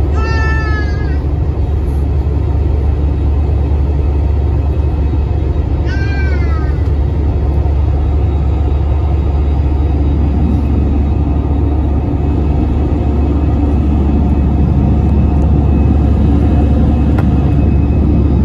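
Steady airliner cabin noise from an Airbus A320-family jet in flight: a loud, even low rumble of engines and airflow. Two short high-pitched cries that fall in pitch cut through it, one near the start and one about six seconds in.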